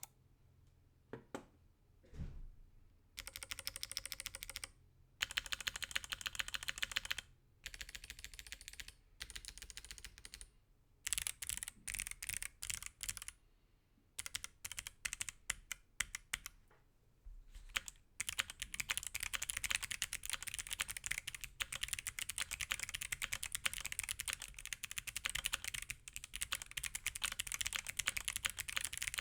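Mechanical keyboard with stock Kailh Box Jade clicky switches being typed on. A few single keystrokes at first, then bursts of fast typing broken by short pauses, and steady fast typing for the last third.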